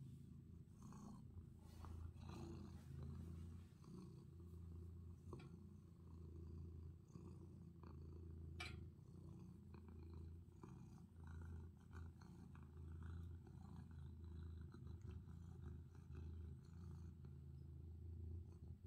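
Domestic tabby cat purring softly while being stroked: a steady low rumble that swells and eases with each breath. A single sharp click about halfway through.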